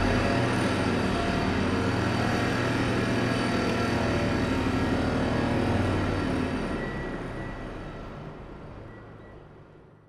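Heavy construction machinery on a piling site running with a steady, low engine drone and clattering mechanical noise, fading away over the last few seconds.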